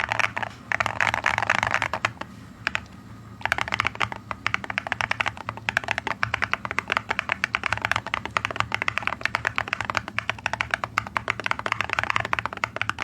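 Fast typing on a mechanical keyboard fitted with ceramic keycaps and Aniy switches: a dense, rapid run of key clacks. It drops to a quieter lull about two seconds in, then resumes as continuous fast typing a second and a half later.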